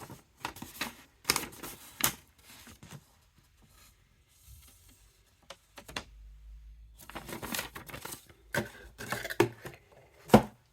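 Handling noise: a paper instruction sheet rustling and crinkling, with irregular sharp clicks and knocks of small plastic parts being picked up and set down, busiest near the start and again in the last few seconds.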